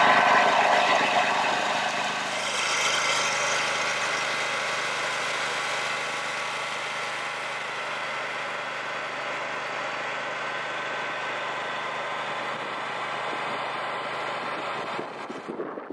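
Insulation blowing machine running steadily, a machine hum made of several steady tones over a rushing noise. It is loudest for the first two or three seconds, then settles, and it changes and drops near the end.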